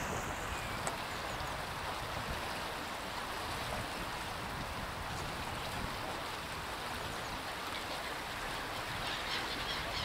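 Park fountain water splashing in a steady rush. A few bird calls come in faintly near the end.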